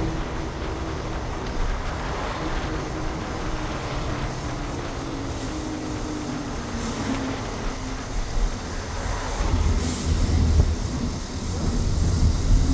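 Inside a moving city bus: a steady low engine drone and road rumble, the engine's hum sinking in pitch midway and climbing again near the end. A short hiss of air comes about ten seconds in.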